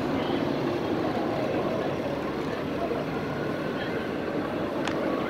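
Steady rumble of city street traffic and idling vehicles, with one sharp click near the end.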